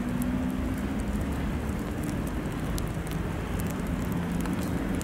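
VL11M electric locomotive approaching slowly at the head of a tank-car freight train: a steady low rumble with a hum, and faint scattered ticks over it.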